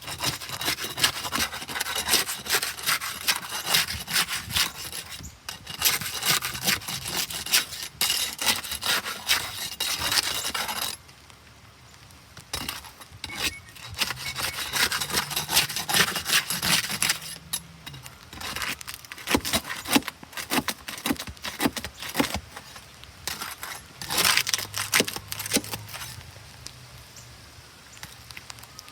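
Rough, rasping strokes of a hand tool working a hard material, like sawing or scraping, running steadily, stopping suddenly about eleven seconds in, then resuming in shorter spells with scattered clicks.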